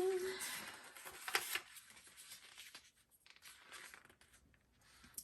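A hummed note trails off in the first half second, then paper rustles and scrapes as oracle cards or guidebook pages are handled, louder about a second and a half in and fainter afterwards.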